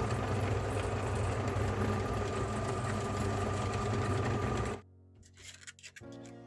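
Electric meat grinder's motor running with a steady whirring hum, cutting off suddenly near the end. Faint, soft music follows.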